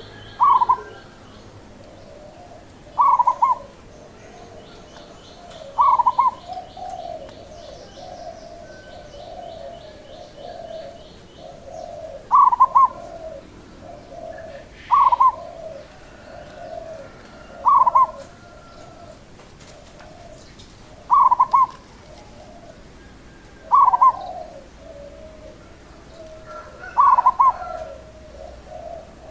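Zebra dove (perkutut) singing its staccato cooing phrase, repeated about every three seconds with one longer pause, over softer rolling cooing. Faint rapid high-pitched chirping comes in near the start and again about a third of the way in.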